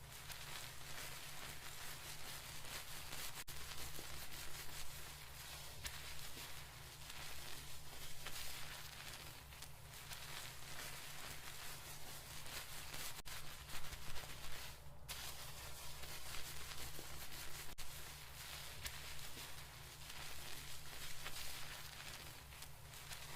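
Hands scrubbing and kneading hair and scalp during a seated dry shampoo wash: a continuous scratchy rustling that swells and eases irregularly, over a low steady hum.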